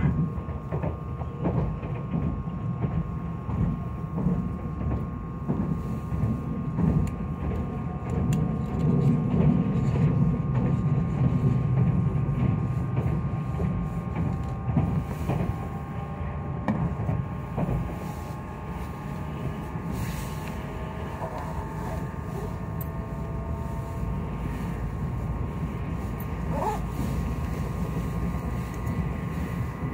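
Inside the cabin of a Meitetsu 2000-series μSKY electric train running along the line: a steady low rumble of wheels on rail with scattered short clicks from the track, and faint steady and slowly gliding tones from the running gear.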